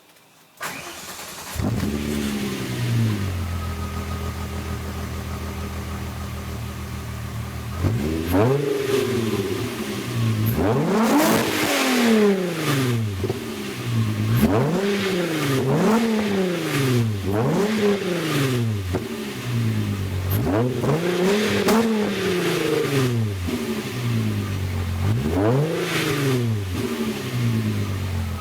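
1998 VW Golf GTI VR6's 2.8-litre narrow-angle V6, exhaust through a Magnaflow muffler with the factory cat and resonator in place. It starts under a second in, flares briefly and settles to a steady idle, then from about eight seconds is revved repeatedly in quick blips, each rising and falling in pitch.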